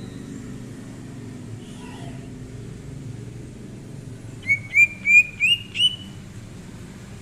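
Green leafbird (cucak ijo) song: a run of five loud, quick upward-sweeping whistled notes a little past the middle, the last sweeping highest, after a faint call earlier on. A steady low hum runs underneath.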